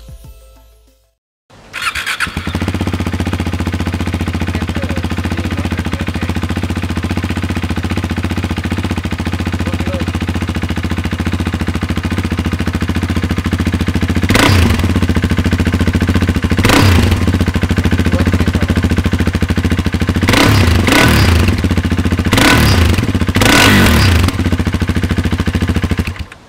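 KTM Duke 390's single-cylinder engine running through a Greasehouse Grunt V2 aftermarket exhaust. It comes in about a second and a half in, idles, then gets several sharp throttle blips in the second half.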